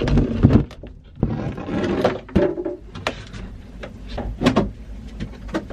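Knocks and scraping of a large wooden hatch board being lifted out and handled in a boat's companionway: several sharp knocks, with a stretch of scraping and rubbing about a second in.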